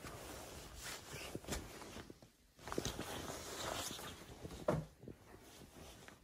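Close rustling and soft knocks of a person moving in front of a phone's microphone: a coat's fabric rustling, the phone being handled, and a few light steps, with a brief lull about two and a half seconds in.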